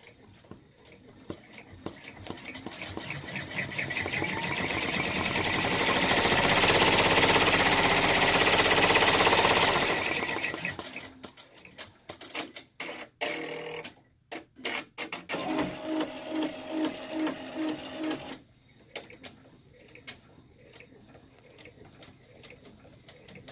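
Baby Lock Enterprise multi-needle embroidery machine stitching at speed with a fast, even rhythm, getting louder and then stopping about ten seconds in. Irregular clicks and whirs follow as the machine changes colour, moving from needle 1 to needle 9, then a short pulsing tone about twice a second.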